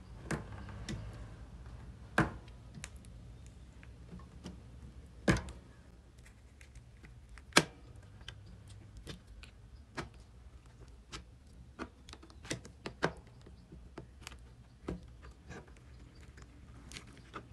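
Screwdriver turning out screws from a washing machine control board's plastic housing: scattered small clicks and taps of metal on screw heads and plastic, with a few louder knocks about 2, 5 and 7 seconds in.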